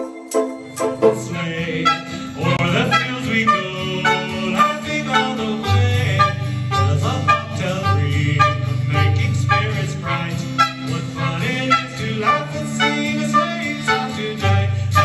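Live stage music heard from the audience seats: guitar-led country-style playing over a steady bass line that comes in about a second in.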